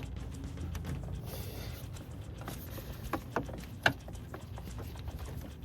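A few light clicks and knocks from a rubber hose being pulled off the plastic engine air intake tube by hand, the sharpest about four seconds in, over a steady low hum.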